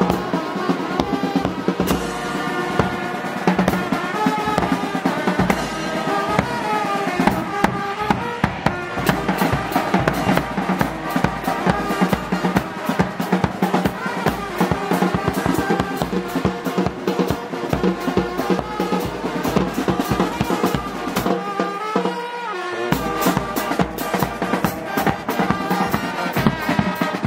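School brass band playing, trombones and other brass carrying the tune over bass drum and snare drum. The low drum part drops out briefly a little past the middle.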